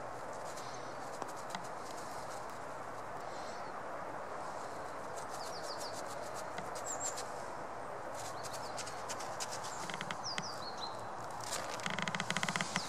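A Eurasian red squirrel scrabbling up a person's jeans: a quick run of clicks and scratches near the end, the loudest thing here. Beneath it is a steady outdoor hiss with a few faint high chirps.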